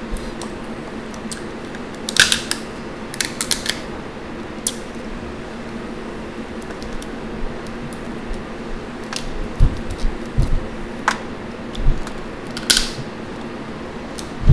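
Boiled crawfish shells being cracked and peeled by hand, in scattered sharp crackles and snaps, with a few dull knocks in between. A box fan hums steadily underneath.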